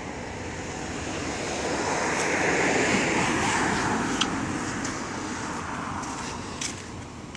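A vehicle passing by: a rushing noise that swells, peaks about three seconds in and fades away, with a few light ticks near the end.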